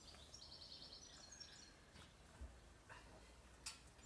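Near silence with a small bird chirping faintly in a quick run of high notes lasting over a second, followed by a few faint clicks.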